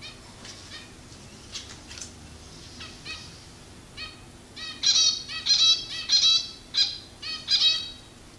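Pet finches calling with short chirps, a few soft ones at first, then from about halfway a quick run of louder, closely spaced calls.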